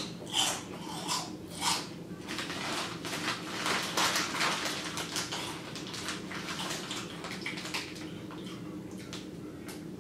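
Crunchy puffed wheat chips being chewed: a few crisp crunches about two thirds of a second apart. Then a plastic chip bag crinkles steadily for several seconds as it is handled and turned over, tapering off near the end.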